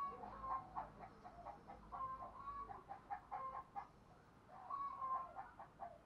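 Spotted dove cooing in three short phrases, each a run of pulsed notes.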